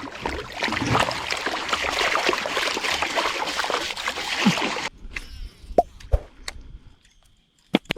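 Water splashing and trickling for about five seconds, then cutting off suddenly, followed by a few separate small plops.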